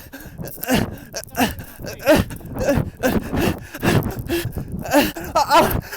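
A man groaning and gasping in wordless, drawn-out moans, with repeated rough bursts of noise that fit wind buffeting the microphone.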